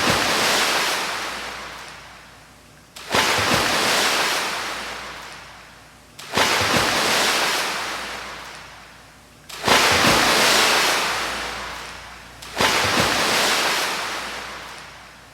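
A sound-effect track of rushing hiss played as relaxing volcano sounds. It comes in five evenly spaced surges about three seconds apart, each starting suddenly and fading away, much like waves breaking.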